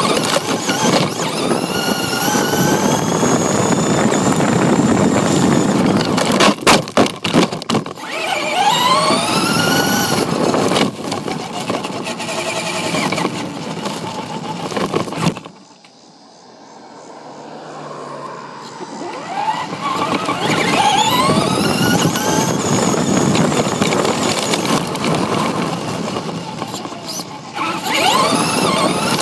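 Electric RC car's motor whining, its pitch rising and falling over and over as the car speeds up and slows, over the rumble of its tyres on gravel and pavement. A quick run of knocks comes about seven seconds in, and the car goes quieter for a few seconds around the middle.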